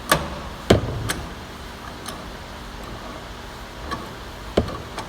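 A few sharp metal clanks at uneven intervals: two loud ones in the first second, a softer one just after, and another loud one near the end. These are steel tools knocking against a hydraulic cylinder's gland nut as it is worked loose, over a low steady shop hum.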